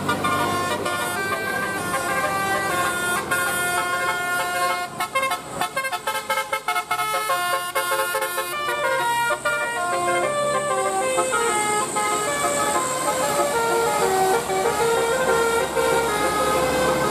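Bus telolet horn, a set of electrically switched air horns, playing a tune of stepped notes: held tones with a run of quick short notes about five seconds in.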